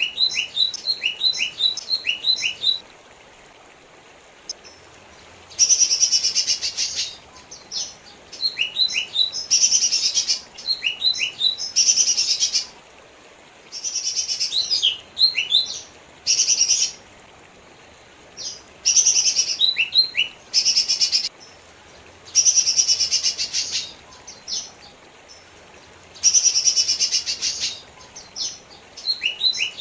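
Lesser green leafbird (cucak ijo mini) singing in repeated phrases: dense, rapid bursts of about a second alternate with quick runs of short, sharp downward-slurred whistles, with pauses of a second or two between phrases.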